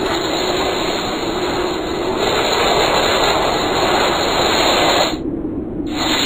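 Loud, steady rushing whoosh of noise, a cartoon sound effect for a sword's Bankai release. It cuts off about five seconds in and briefly returns near the end.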